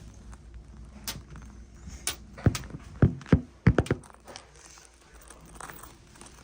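A quick run of sharp knocks and thuds, about seven of them, most packed together between two and four seconds in, as objects are handled and set down.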